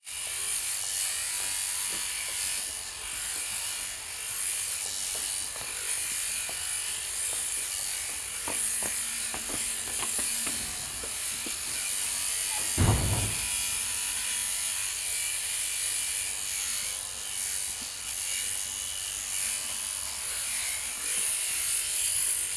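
Beiyuan Xpert oil-bath sheep-shearing handpiece running steadily as it clips through fleece, a continuous buzzing hiss. A brief low thump about halfway through.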